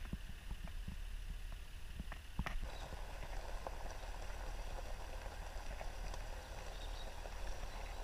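Vehicle driving along a gravel track: a low steady rumble, with a couple of sharp knocks a couple of seconds in and tyre noise on the gravel after them.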